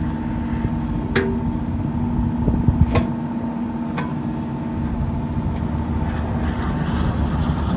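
Kubota U35-4 mini excavator's three-cylinder diesel engine running steadily as the machine travels on its tracks over gravel, with a few sharp clanks about one, three and four seconds in.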